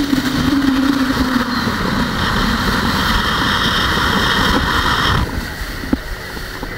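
Outboard motor running at cruising speed on a planing boat, with the hull rushing through the water and wind. About five seconds in the rushing noise drops away abruptly, leaving a quieter engine drone.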